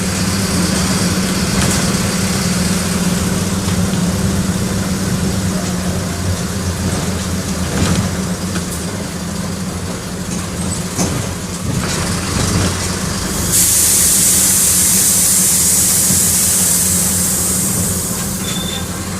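Mercedes-Benz OM-904LA four-cylinder in-line turbodiesel of a LO-915 bus running steadily, with a few sharp clicks in the middle. About two-thirds of the way in, a loud hiss of air from the bus's pneumatic system starts suddenly and lasts about five seconds.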